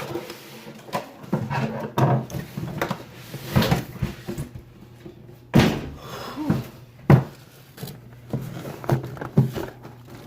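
Cardboard box being handled and opened: a string of irregular knocks, thuds and scraping, with two sharper thumps around the middle.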